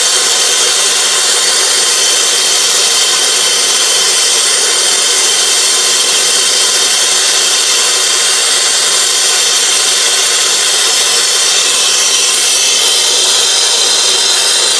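Brazing torch flame hissing steadily and evenly while silver soldering a copper refrigerant line joint.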